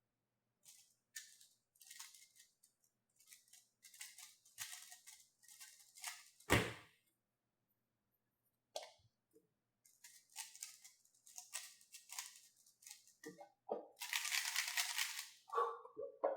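Plastic 3x3 speedcube being handled and turned, with irregular bursts of clicking and rattling of the layers. There is one sharp knock about six and a half seconds in. A dense run of very fast turning comes near the end.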